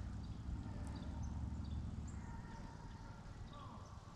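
Low wind rumble on the microphone in an open field, with a few faint, brief distant animal calls.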